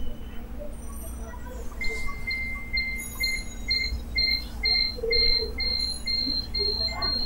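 High-pitched rhythmic chirping, about two or three short pulses a second, starting about two seconds in and growing louder, over a low steady hum.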